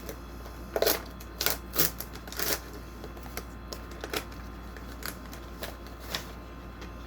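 Cardboard and plastic packaging of a Pokémon card box being opened and handled by hand: a series of short, irregular rustles and taps, the loudest about a second in and around two and a half seconds.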